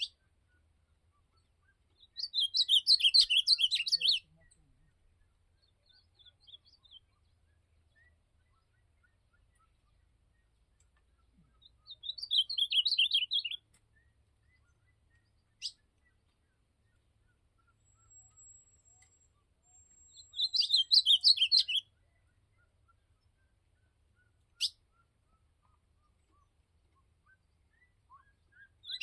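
Ultramarine grosbeak (azulão) singing: three short warbled phrases of about two seconds each, roughly ten seconds apart. Two sharp clicks fall between the phrases.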